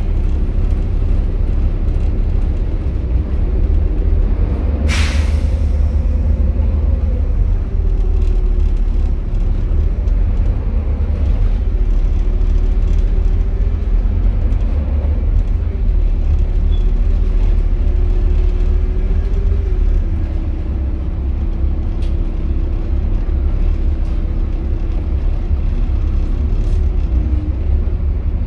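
Volvo B7TL double-decker bus's diesel engine running in slow traffic, heard from inside the saloon as a steady low rumble with an engine note that rises and falls a little. About five seconds in comes one short, sharp hiss of air from the air brake system.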